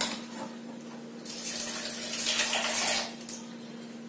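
Thin tomato gravy heating in a kadai over a gas flame turned to high: a soft hiss swells about a second in and fades about two seconds later, over a steady low hum.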